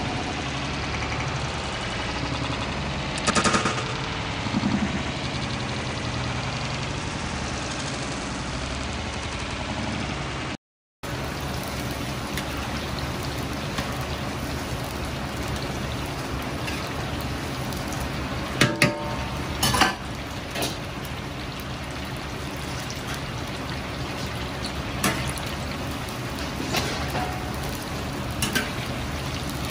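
Starch-and-egg-coated chicken pieces deep-frying in a wok full of hot oil: a steady, dense sizzle and bubbling. In the second half a metal ladle clinks against the iron wok a few times as the pieces are stirred, loudest twice in quick succession.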